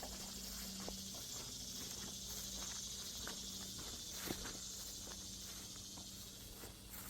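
Insects trilling in a steady high-pitched chorus, with a hiker's irregular footsteps on the trail and a faint steady low hum underneath.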